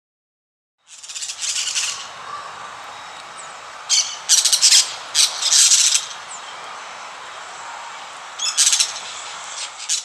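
Parrots squawking: harsh screeches in several bursts over a steady background hiss, loudest in the middle.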